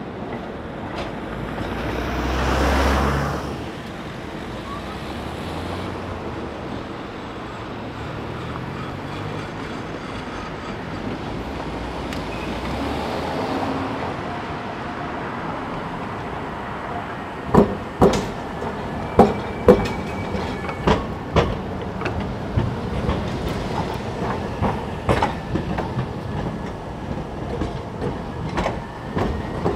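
Trams on street track: a passing swell about three seconds in, then a steady running rumble. From a little past halfway, an articulated tram passes close, its wheels knocking sharply and irregularly over rail joints and points, with a faint wheel squeal.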